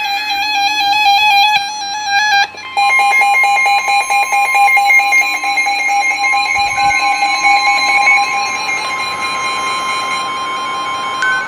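NOAA Weather Radio emergency alert signal, played through a receiver's speaker. It starts with the warbling tail of a SAME digital header burst, which cuts off about two and a half seconds in. Then the steady 1050 Hz warning alarm tone sounds for about eight and a half seconds, signalling that a warning (here a severe thunderstorm warning) is about to be read.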